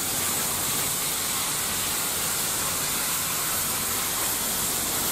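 Steady outdoor background hiss, brightest in the high range, over a faint low rumble, with no distinct events.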